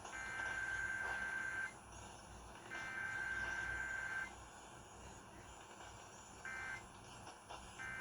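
Emergency Alert System digital header data played through a radio's speaker: harsh two-tone buzzing data bursts, two of them about a second and a half long and a second apart, then two short bursts near the end.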